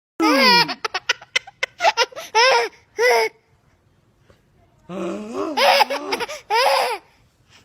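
A baby laughing in repeated bursts of giggles and belly laughs, set off by people sneezing, with a quiet pause of about a second and a half in the middle.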